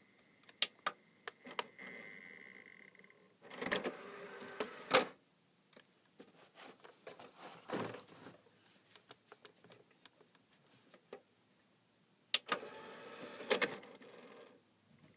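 A CD/DVD player's disc tray opening and closing under its small motor. Two spells of whirring each end in a loud clunk, and there are sharp clicks and a scatter of light ticks from the drive in between.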